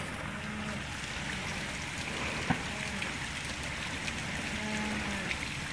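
Jeep Wrangler crawling slowly over rocks, its engine a low rumble under a steady hiss of rushing water; a single sharp knock about two and a half seconds in.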